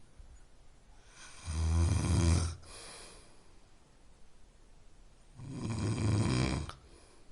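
A person snoring: two loud snores about four seconds apart, each lasting about a second with a low buzzing rattle, and a softer breath just after the first.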